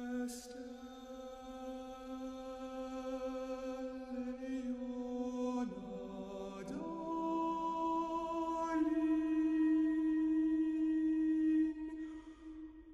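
Background music of slow, sustained chant-like chords, held for seconds at a time. The chord shifts to new notes about six seconds in and again a few seconds later, swelling in the middle.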